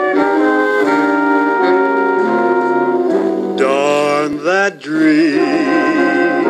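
Recorded jazz: a brass ensemble holds sustained chords, then about halfway through a male vocalist comes in, ending on a held note with vibrato.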